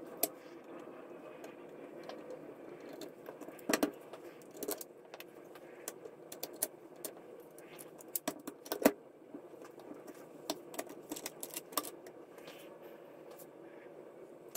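Scattered metallic clicks and clinks of steel action parts of a Miroku Winchester 1886 lever-action rifle being handled and taken apart, as the lower tang with its hammer and trigger parts is worked out of the receiver. The sharpest clicks come about 4 and 9 seconds in, over a faint steady hum.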